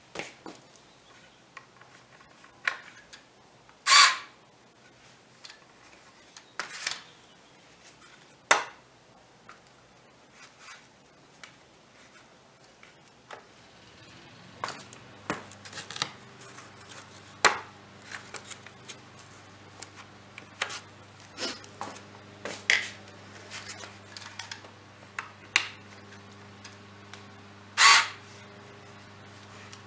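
Scattered clicks and knocks of hand tools and bar clamps being handled around a wooden frame, the loudest about four seconds in and again near the end. A steady low hum sets in about halfway through.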